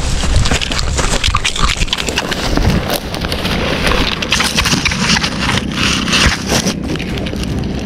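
Grass stems and dry leaves rustling and crackling right against the microphone as a hand pushes through dense vegetation, with wind buffeting the microphone near the start.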